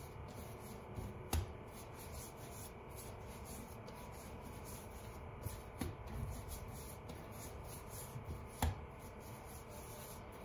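Hands rolling baguette dough back and forth on a floured countertop: a faint, soft rubbing, with a few light knocks along the way.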